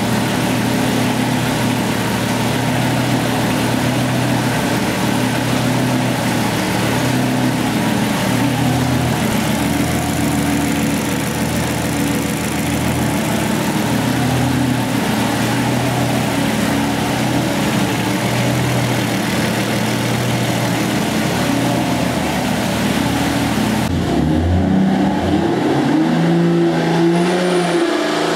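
Golen 4.6-litre Jeep stroker inline-six running on an engine dyno, holding a steady speed. About 24 seconds in the sound changes and the engine speed shifts up and down.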